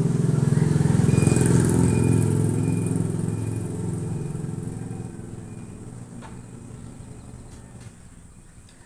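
A passing road vehicle's engine, loudest about a second in and then fading away over several seconds.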